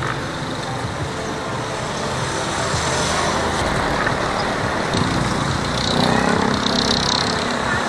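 Street traffic: small motorcycle and tricycle engines running and passing along with road noise, one passing vehicle louder between about five and seven seconds in.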